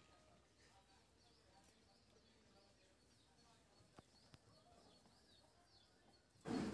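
Near silence with faint chirping of small birds in the background. Near the end comes a brief, much louder burst of noise.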